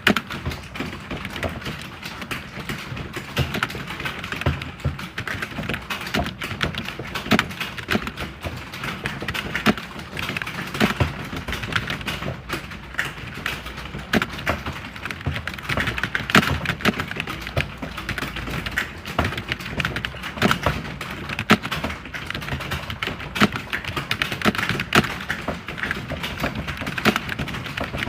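Computer keyboard being typed on continuously: a fast, uneven stream of key clicks.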